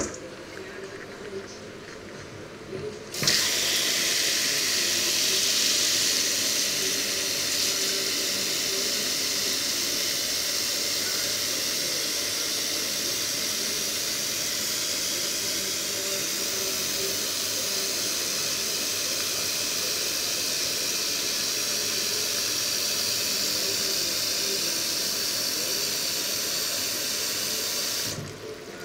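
Kitchen tap turned on about three seconds in, running a steady stream of water into a stainless steel bowl of green beans in a steel sink; the water is shut off just before the end.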